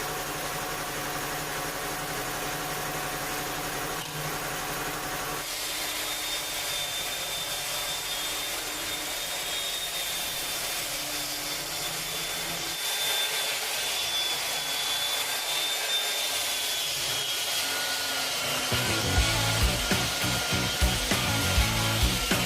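Steady running noise of a power tool working wood, with a thin high whine above it from about five seconds in. A low, regular beat comes in near the end.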